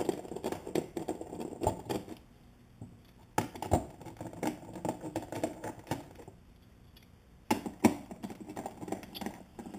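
Light metallic clicking, scraping and rattling of a hand 10 mm nut driver on the nuts of a car's fuel tank access cover as they are unscrewed, in three bouts separated by short pauses.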